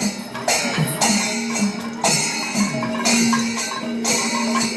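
Shingari melam: chenda drums beaten in a fast, driving rhythm with clashing ilathalam cymbals, over a steady low held tone.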